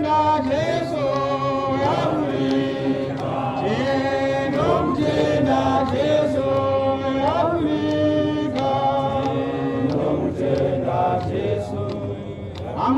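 Men's voices singing a hymn together, unaccompanied and chant-like, with long held notes that slide up and down in pitch.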